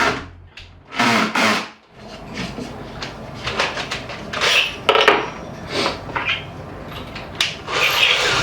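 Irregular knocks, clatter and short scraping strokes of wooden parts and tools being handled.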